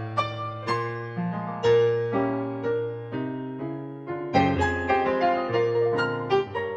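Solo piano music: notes struck one after another and fading, over lower bass notes.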